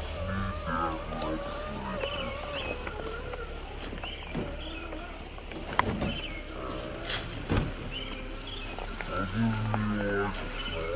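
Slowed-down audio of people talking, their voices stretched into a deep, drawn-out growl, with small high chirps above it and a couple of sharp knocks in the second half.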